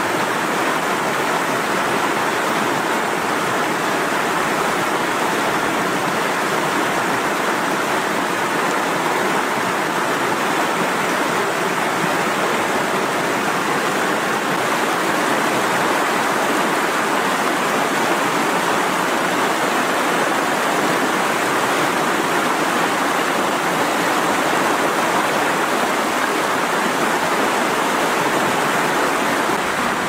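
Mountain river rapids rushing: whitewater pouring steadily over rocks, an even, unbroken noise of flowing water.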